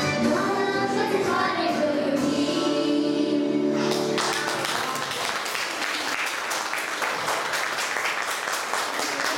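A group of children sings with backing music and ends on held notes. The music cuts off about four seconds in, and steady applause follows.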